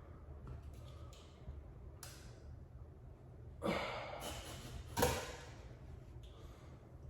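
Handling noises from wallpapering work: two short scraping, rustling sounds about a second and a half apart, the second sharper and louder, over a low steady hum.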